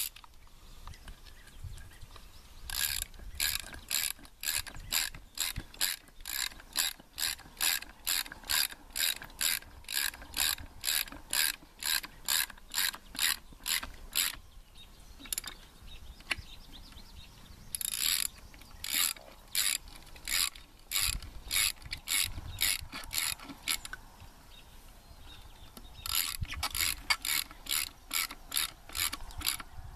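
Ratchet wrench clicking while tightening a bolt down, in three runs of evenly spaced clicks about two a second, with short pauses between runs.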